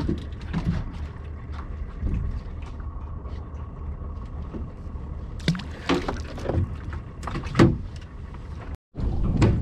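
Small fishing boat's engine idling with a steady low rumble, with a few sharp knocks and thuds of handling on board a little past halfway. The sound drops out for a moment near the end.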